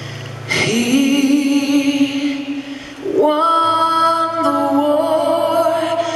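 A woman singing a slow ballad live into a microphone, coming in about half a second in with long held notes that waver slightly, a brief breath near three seconds, then a higher sustained phrase over a quiet low accompaniment.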